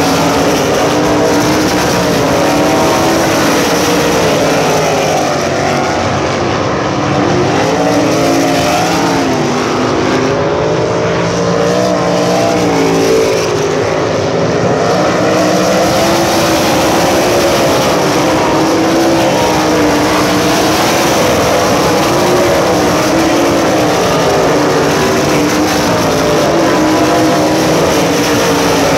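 A field of open-wheel USAC Silver Crown race cars running on a dirt oval. Several loud engines overlap, their pitch rising and falling as the cars come off the throttle into the turns and get back on it down the straights.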